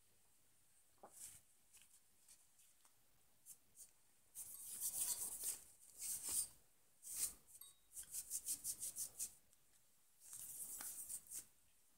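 Hands working on desktop computer hardware: a few light clicks, then bursts of rubbing and scraping, including a quick run of about nine short back-and-forth strokes.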